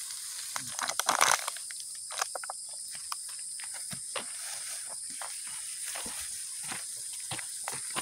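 Leaves of a large bundle of freshly cut grass rustling as it is carried on the head, with irregular footfalls on a dirt path and a louder rustle about a second in. A steady high insect drone sits underneath.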